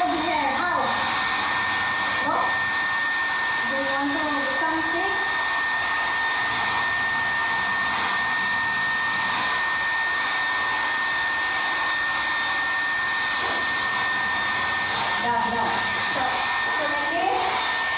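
Handheld electric hair dryer blowing steadily on a dog's thick wet coat: an even rush of air with a thin, steady high whine on top.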